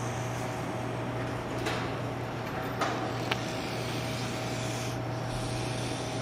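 A sleeping pet snoring over a steady low hum, with two small clicks near the middle.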